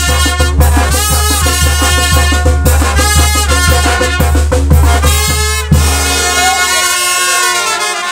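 A brass band (sousaphone bass, brass and drums) plays a lively dance tune. About six seconds in the drums stop and the last held notes fade out as the tune ends.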